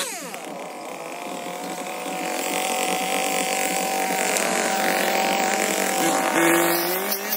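Two-stroke chainsaw engine winding down from a rev, then running at a steady speed; about six seconds in, its note drops lower and climbs slowly.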